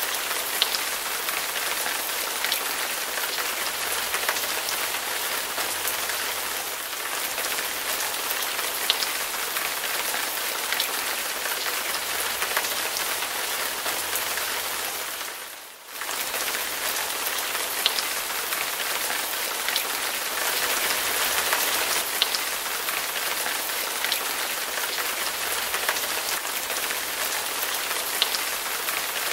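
Heavy rain pouring steadily, with louder drop hits now and then. About halfway through the sound dips out for a moment and comes straight back.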